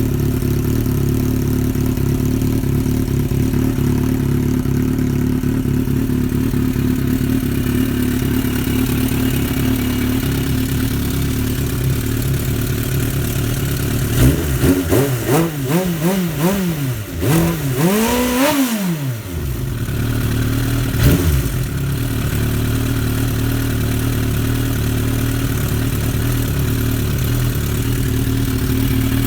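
1990 Suzuki GSX-R750 Slingshot's inline-four engine idling steadily. About halfway through, the throttle is blipped several times in quick succession, rising and falling in pitch with one bigger rev near the end of the run. One more short blip follows, then it settles back to idle.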